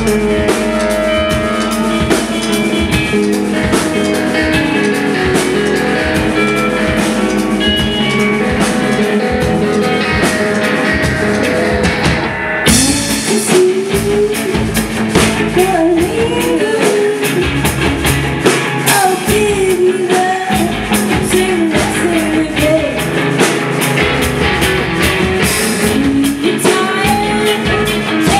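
Live rock band playing: drum kit, electric guitars and keyboard. About halfway through the cymbals drop out for a moment, and then the lead vocal comes in and carries on over the band.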